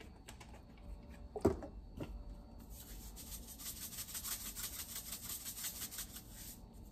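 A knock about a second and a half in, then a sea-salt grinder being twisted, giving a fast, gritty crunching of salt crystals for about four seconds that stops shortly before the end.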